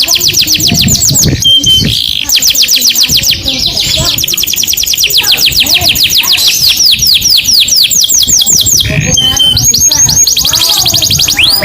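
Domestic canary singing long, rapid trills of repeated high downward-sweeping notes, broken by brief pauses and a couple of short steady whistles.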